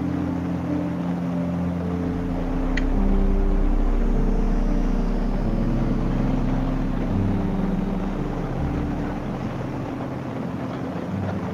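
Harley-Davidson Street Glide's V-twin engine running at road speed with wind rush. The engine note shifts in pitch several times as the throttle changes, and there is a single short click a little under three seconds in.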